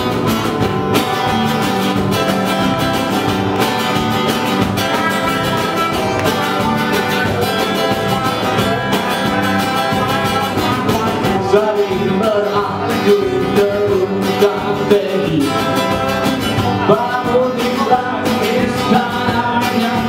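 A small band playing guitar music, with an acoustic guitar strummed; a man's singing voice comes in about halfway through.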